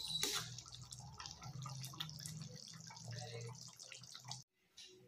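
Fish curry gravy simmering in a wok: many small irregular pops and ticks over a low steady hum. It cuts off suddenly about four and a half seconds in.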